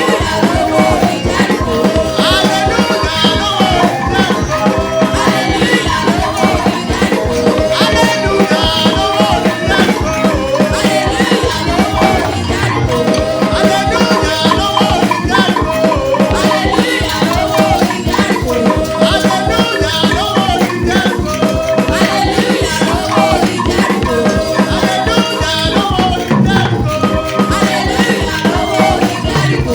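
Up-tempo church praise music: singing over a band with a fast, steady shaker and drum rhythm.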